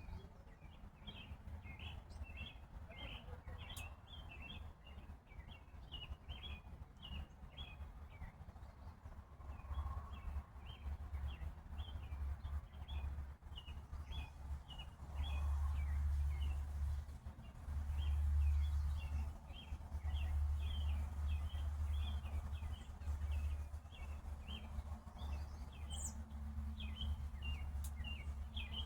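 A bird chirping over and over in short, falling notes, several a second. Under it runs a low rumble that swells louder about halfway through.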